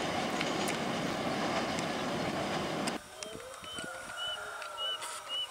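Passenger train carriages running over a steel truss bridge, a dense steady rolling noise that cuts off abruptly about three seconds in. After it, a quieter stretch with a few short, rising bird chirps.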